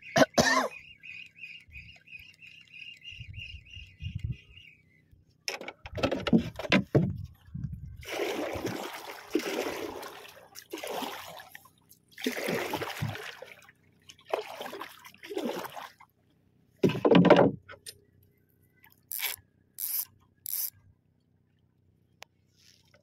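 Fishing rod and spinning reel being handled close up: a series of rustling, scraping bursts about a second long, with a loud one about seventeen seconds in, then a few short sharp clicks. A bird chirps steadily for the first few seconds.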